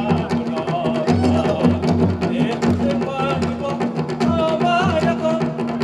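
Live folk dance music: a drum keeps a steady beat under a sustained drone, with a wavering melody line above.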